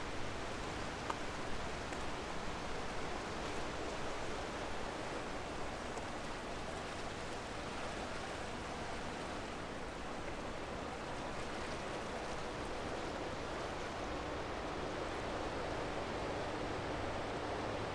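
Steady rushing hiss of the Vardar River's water flowing past the stone embankment, an even noise with no distinct events.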